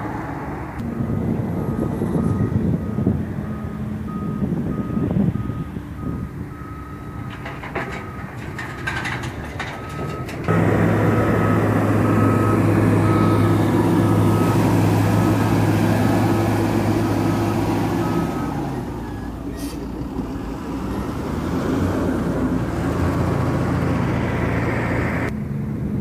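Reversing alarm of a heavy construction vehicle beeping steadily about twice a second while its diesel engine runs, the engine getting much louder about ten seconds in and easing off again near the end of the beeping. A few sharp clatters come around the middle.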